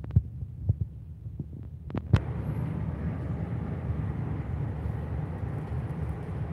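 Boat engine running with a steady low rumble, with a few sharp knocks in the first two seconds and wind noise on the microphone building from about two seconds in.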